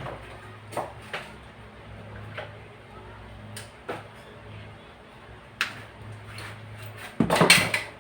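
Scattered clicks and knocks of tools and metal compressor parts being handled on a workbench, with a louder clatter about seven seconds in, over a low steady hum.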